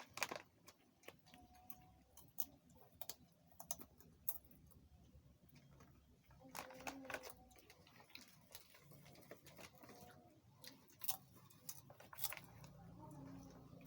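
Faint, scattered small clicks and crunches of people eating and handling food, with a brief faint voice-like hum about seven seconds in.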